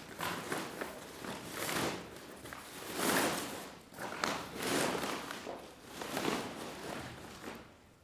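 Sheets of paper rustling and crumpling as hands work them inside a hessian sack, in irregular swishes, the loudest about three seconds in.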